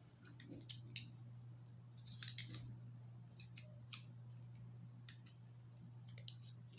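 Fingernails picking and scraping at the plastic wrap on a roll of washi tape, trying to find the seam: a scatter of small, sharp clicks and crinkles at irregular moments over a steady low hum.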